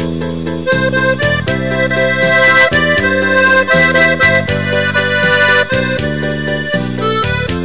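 Instrumental background music: held chords with a melody line above them, the notes changing every second or so.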